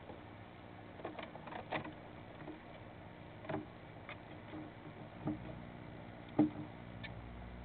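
Scattered light knocks and scratches of a flying squirrel's claws on the wooden walls and shavings of a nest box, irregular, with the loudest knock about six seconds in, over a steady faint hum.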